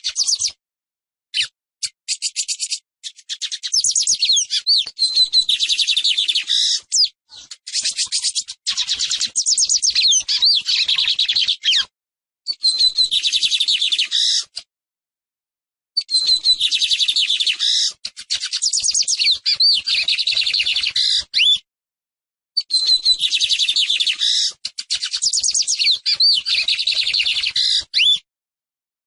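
Lined seedeater (Sporophila lineola) singing. A few scattered single notes open the song, then come several long bouts of rapid, high-pitched notes mixed with wavering whistles. The bouts are separated by pauses of about a second.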